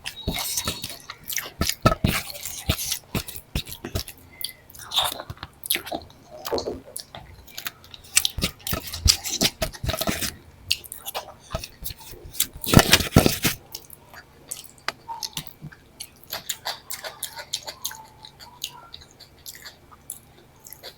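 Close-miked eating: chewing and biting a meal of dal, rice and fried vegetables, with irregular wet mouth clicks and occasional crunches. One louder, longer crunching burst comes about two-thirds of the way through.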